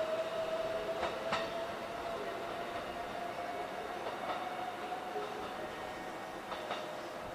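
Electric train pulling away: a steady motor whine rises slowly in pitch and fades, with a few sharp clicks of wheels over rail joints.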